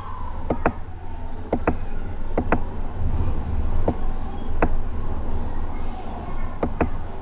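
A computer mouse button clicking about six times at irregular intervals, several of the clicks in quick pairs, over a low steady hum.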